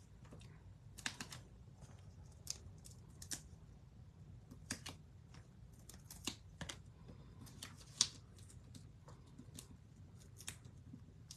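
Hands handling card stock, ribbon and foam adhesive dimensionals on a craft desk: scattered light clicks and taps of fingernails and paper, irregular, with one sharper tap about eight seconds in.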